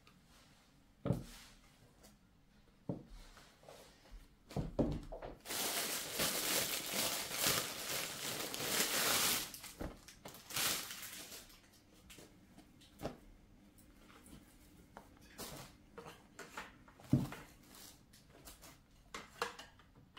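Objects being handled: scattered knocks and clicks, with about four seconds of rustling starting about five seconds in.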